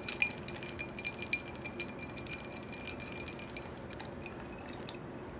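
Rapid, irregular clinking in a white ceramic bowl of drink held in both hands, the bowl ringing faintly with each clink. The clinks thin out and stop about four seconds in.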